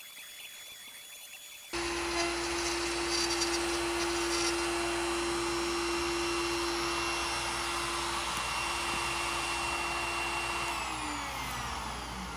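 About two seconds in, the CNC's trim router and its dust-extraction vacuum start up sharply and run at a steady high speed over a loud rushing hiss. Near the end the router's pitch falls as it spins down at the end of the job, while the vacuum keeps running.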